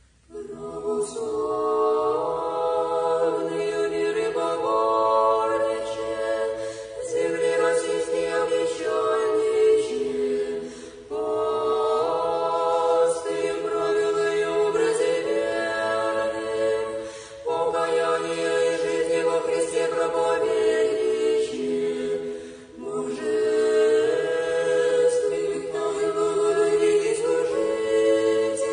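Unaccompanied choir singing Orthodox church chant in sustained chords, phrase after phrase with short breaks between them.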